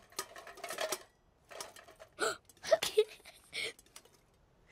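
A few brief wordless voice sounds, short and bending in pitch, among scattered soft clicks and rustles.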